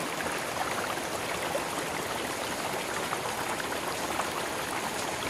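Small river flowing, a steady rush of water.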